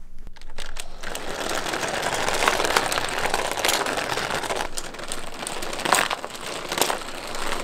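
Toy monster trucks rolling down a plastic ramp track one after another: a steady rattling roll with several sharp clacks as they crash into toy barrels and pile up against each other.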